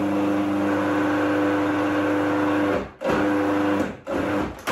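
Food processor motor running, blending ginger cookie dough: a steady hum for nearly three seconds, then after a short break a second pulse of about a second, mixing the dough until it comes together.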